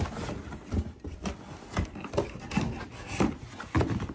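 Cardboard box being opened by hand: its flaps are pulled back and the contents are shifted and handled, giving irregular knocks, scrapes and rustles of cardboard.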